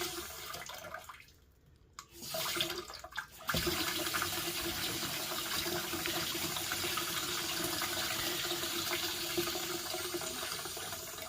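Water rushing through the ball valve into a loft cold water storage tank. It cuts out for about a second, about a second in, then resumes with a steady hum: the valve noise heard when taps run, which the plumber puts down to the ball valve.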